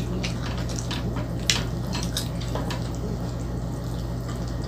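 Wet chewing and mouth sounds of someone eating spaghetti: scattered small wet clicks and smacks, with one sharper click about a second and a half in, over a steady low hum.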